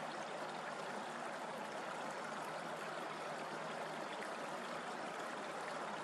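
Steady outdoor background hiss, even throughout, with no distinct calls or knocks.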